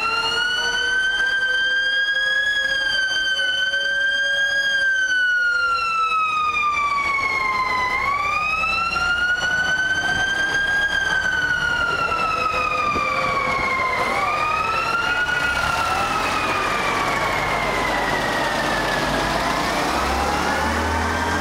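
A siren wailing, its pitch slowly climbing and falling in long cycles of several seconds each. A low vehicle engine rumble comes up near the end.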